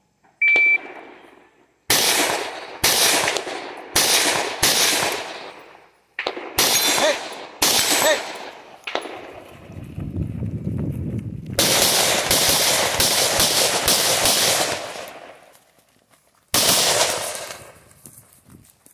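A shot timer's start beep, then an AR-15 carbine firing: a string of single shots, a pause, a second string, a fast run of shots, and one more shot near the end. Between strings there is the low rumble and rustle of running between shooting positions.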